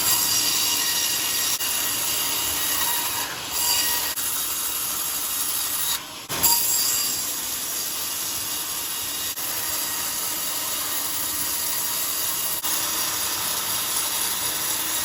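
Band sawmill cutting a coconut log: a steady high whine and hiss of the blade in the wood, with a short dip about six seconds in.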